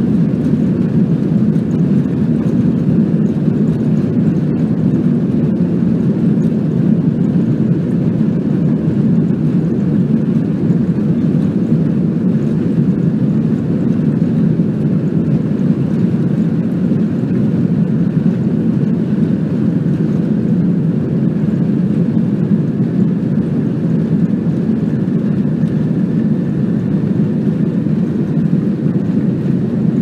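Jet airliner cabin noise in flight: a steady, deep rush of engine and airflow sound that stays even throughout.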